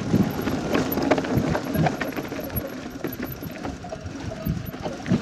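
Niner mountain bike rattling down a rocky trail, a steady clatter of many small knocks from the chain, frame and wheels over stones, with rushing noise from wind on the microphone.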